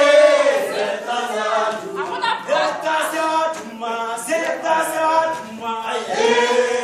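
A group of people singing a revolutionary song a cappella in harmony. A loud held chord at the start gives way to shorter sung phrases.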